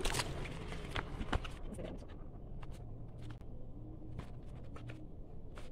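Clear plastic wrapping crinkling as it is pulled off a cardboard soap box, with a few sharp crackles in the first second and a half, then lighter clicks of the box being handled.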